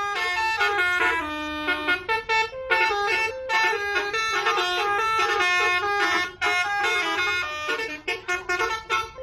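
Indonesian bus telolet horn, a set of air horns played as a tune: short notes that jump up and down in pitch several times a second. It breaks off briefly about six seconds in and turns choppier near the end.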